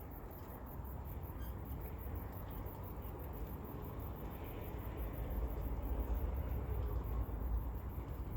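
Suburban outdoor ambience: insects chirping in a steady high pulse, about four pulses a second, over a low rumble that grows louder from about halfway through.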